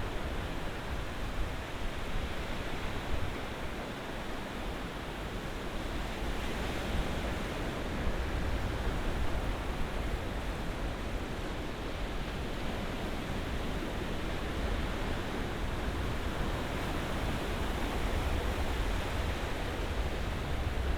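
Ocean surf washing continuously as a steady hiss with a deep low rumble, swelling gently in level without distinct separate crashes.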